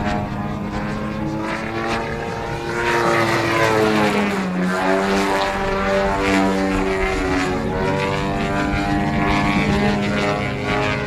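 ZDZ 97cc two-stroke petrol engine with an RE3 tuned pipe, driving the propeller of a large-scale Extra 330LX aerobatic model plane in flight. It runs steadily, its pitch sliding down about four seconds in and then climbing back.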